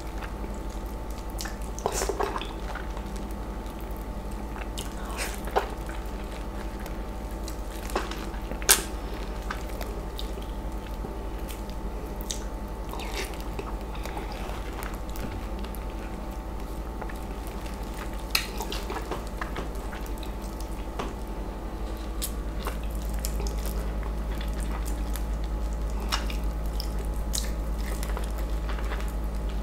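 Close-miked wet eating sounds of a ripe, juicy East Indian mango being bitten and sucked off its seed by hand: scattered sharp lip smacks and squishes of soft pulp, over a steady low hum.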